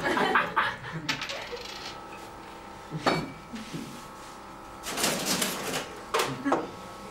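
Coins clinking and dropping onto a bar counter in a few short clusters of bright metallic clicks.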